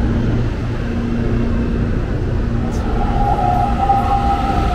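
CPTM electric commuter train moving through the station: a steady rumble, with a steady whine from its motors joining about three seconds in.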